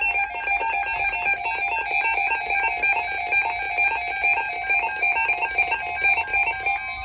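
Music: a fast, repeating melody of short high notes.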